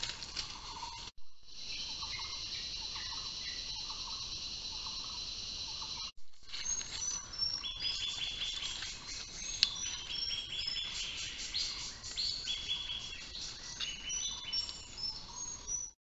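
Tropical forest ambience: a steady high insect drone for several seconds, then many short high calls, birds and insects, at changing pitches. The sound breaks off abruptly about a second in and again about six seconds in, where one clip cuts to the next.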